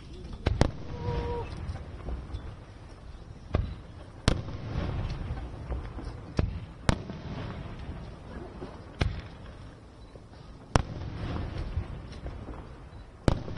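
Aerial firework shells bursting, about eight sharp bangs at uneven intervals, each followed by a low rolling rumble and echo.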